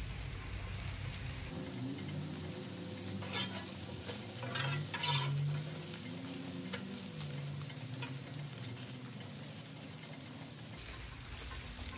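Shishito peppers sizzling in oil on a very hot Blackstone flat-top griddle. A metal spatula scrapes across the steel a few times, between about three and five seconds in, as the peppers are turned.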